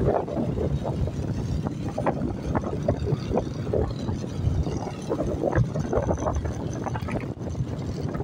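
Wind buffeting the microphone of a camera on a moving motorcycle at road speed, with the motorcycle's engine and tyre noise running underneath.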